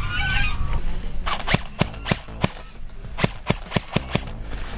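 Airsoft rifle firing a string of about a dozen single shots, three or four a second, for about three seconds. Domestic fowl call briefly at the start.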